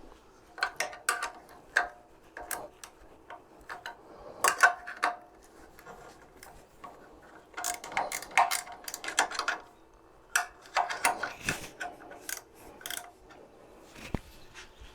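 Hand tools working a bolt loose on a small generator: several runs of quick metal clicks and clinks with short pauses between.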